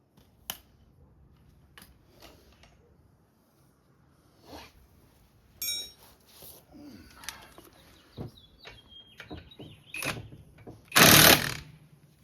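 Tools and brake parts clicking and knocking during a front brake pad and rotor job, with a brief metallic ring about midway and a short, loud burst of noise near the end.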